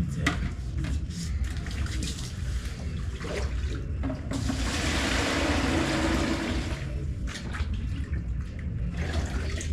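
Water pouring, a steady rush lasting about two and a half seconds near the middle, with scattered knocks before and after it.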